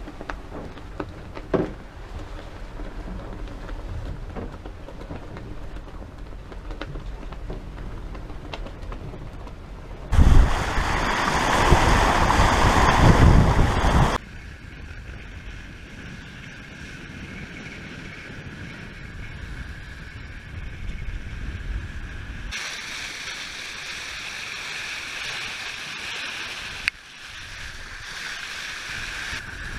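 Water rushing along the hull of a 34-foot Colvin Saugeen Witch sailboat heeled under sail, with wind, in several cuts. A loud rushing burst lasts about four seconds in the middle, a few light knocks come near the start, and a faint steady whistle runs through the second half.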